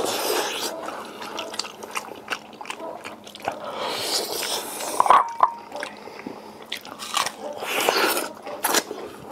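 Close-up wet eating sounds of two people gnawing red-braised pig's trotters: sucking, smacking and chewing on the sticky skin, with many short clicky mouth noises.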